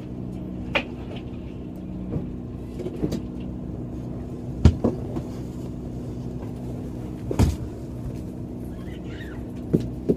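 Steady low hum of the RV's engine running, with several sharp knocks and thumps inside the RV, the loudest about halfway through and again a few seconds later.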